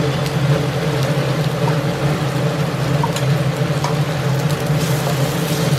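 Ground chilli, ginger and turmeric masala sizzling and crackling in hot oil in a frying pan, over a steady low hum.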